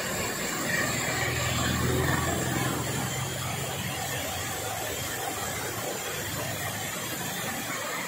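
Steady rushing of a waterfall cascading down a rock face, with a vehicle engine's low hum underneath from about one to three and a half seconds in.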